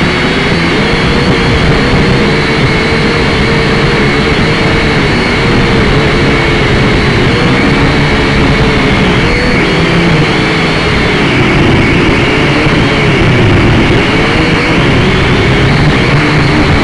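Quadcopter drone's electric motors and propellers running loudly and steadily, their whine drifting up and down in pitch as it flies.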